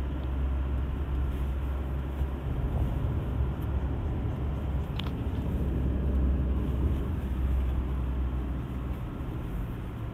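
Cab noise of a 2020 Toyota Hilux pickup on the move: a steady low rumble from its 2.8-litre 1GD-FTV turbodiesel four and the tyres on the road, heard from inside the cab. A short click about five seconds in.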